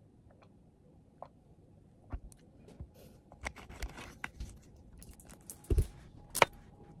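A plastic drink bottle and its screw cap handled at a table: scattered soft clicks and taps, then a heavier thud about five and a half seconds in and a sharp click just after.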